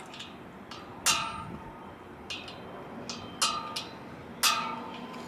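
A hammer strikes a center punch into an aluminium mountain-bike rim about five times, unevenly spaced, and each strike rings briefly in the metal. The punching presses the rim wall in against a loose internal joining sleeve to stop it rattling.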